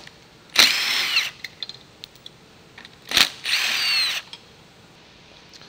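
Cordless drill-driver with a socket spinning bolts on a brush motor's mount plate, in two short runs of about a second each, its motor whine rising as it speeds up.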